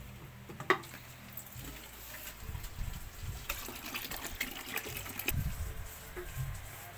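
Water poured from a plastic bottle into a plastic bucket, splashing, with clicks of the plastic bottle; a sharp knock comes under a second in.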